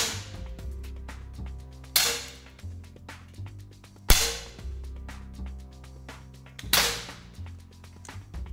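Three shots from 10-metre precision air pistols, each a sharp crack with a brief noisy tail, fired a couple of seconds apart over soft background music.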